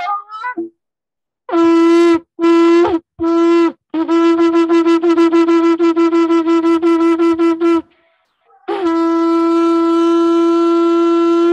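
A ram's-horn shofar is blown in the traditional Rosh Hashanah calls. After a few short sputters come three separate broken blasts (shevarim), then a rapid run of short staccato notes at about five a second (teruah), and after a pause one long steady blast (tekiah) that bends up in pitch as it ends.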